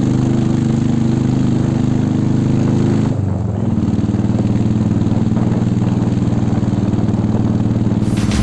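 Motorcycle engine running steadily while riding, its note shifting briefly about three seconds in.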